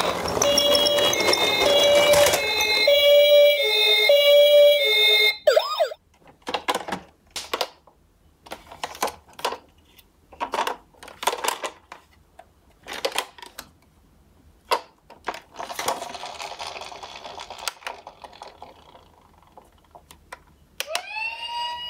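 Battery toy ambulance playing an electronic siren of alternating tones over a rushing noise, cutting off after about five seconds. Then scattered clicks and knocks of a plastic toy ambulance being handled in a cardboard box, and near the end a second toy's electronic siren sliding up and holding.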